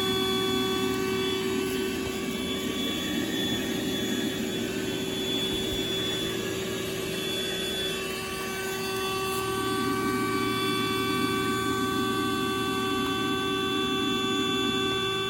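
Music playing through the Ozark Trail tent's built-in Bluetooth speaker: long held chords over a steady low hum, the chord changing about halfway through.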